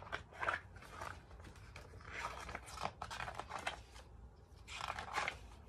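Paper rustling as a paperback picture book's cover is opened and its pages are turned by hand, in faint irregular rustles with a brief pause about four seconds in.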